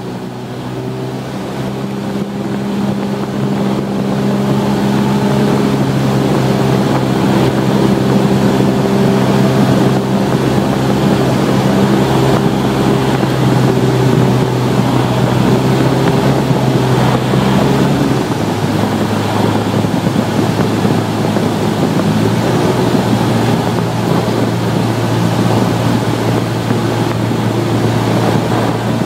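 Cessna 172R's four-cylinder Lycoming engine and propeller droning steadily, heard inside the cockpit, with air rushing past. The sound fades up over the first few seconds, and the engine note drops a step about two-thirds of the way through.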